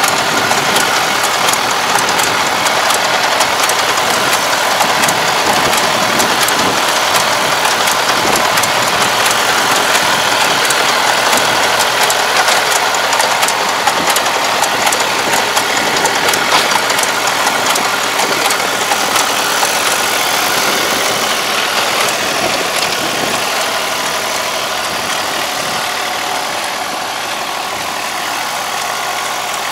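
Yanmar half-track tractor's diesel engine running steadily under way, with frequent clicking over the top, as it pulls a soil fumigant injector across the field; the sound eases off a little in the last several seconds as the tractor draws away.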